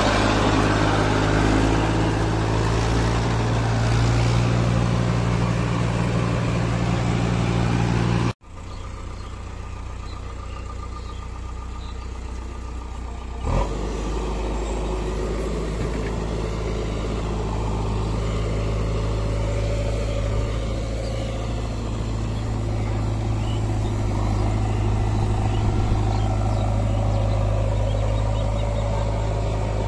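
Diesel tractor engine running steadily while driving a belt-driven brick-making machine. It breaks off suddenly about eight seconds in. After a short knock a few seconds later, the diesel engines of a Massey Ferguson 1035 tractor and a JCB 3DX backhoe loader idle steadily.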